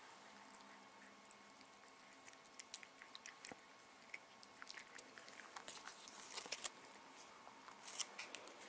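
Cat eating a treat from a person's fingers: faint, irregular small clicks and smacks of licking and chewing, starting about two seconds in and thickest near the end.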